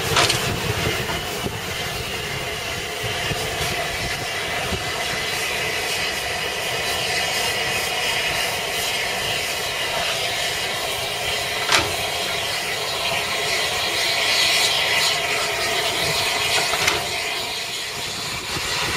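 Slow-moving steam train: carriages rolling over the track, then an un-rebuilt Bulleid light Pacific steam locomotive with steam hissing, the hiss growing louder about two-thirds of the way through. A single sharp knock sounds a little past the middle.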